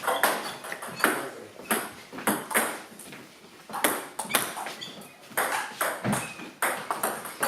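Table tennis rally: a ball clicking off bats and table in a string of sharp hits, roughly one every half second to second, with short gaps.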